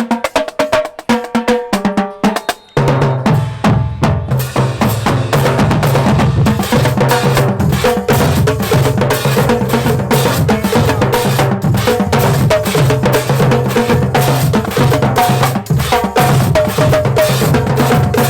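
Marching band drumline playing a cadence. Sparse snare and tenor strokes give way, about three seconds in, to a dense, steady groove with the bass drums booming underneath.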